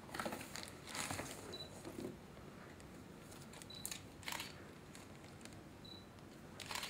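Faint rustling and crinkling of wrapping paper and cardboard boxes being handled and pulled open, in a few short scuffs. There are also three short, high beeps about two seconds apart.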